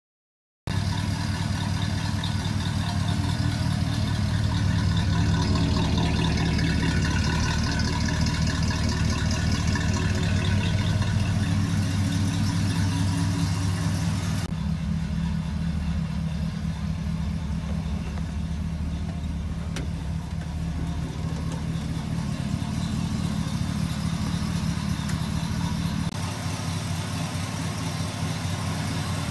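1936 Chevrolet pickup's carbureted engine running steadily at idle.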